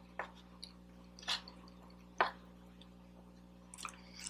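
Close-miked chewing of a meatloaf, mashed potato and gravy meal: a few short wet mouth smacks, roughly a second apart.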